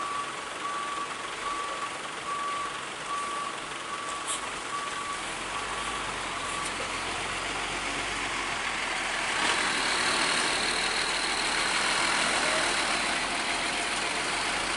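A vehicle's reversing alarm beeping about twice a second over heavy vehicle noise; the beeping stops about five seconds in. From about ten seconds, a louder truck sound takes over.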